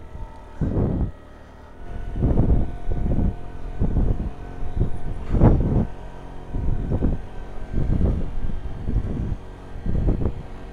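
Wind buffeting the helmet-mounted camera's microphone in irregular gusts while riding, over a faint steady engine drone from the scooter that is towing the motorcycle.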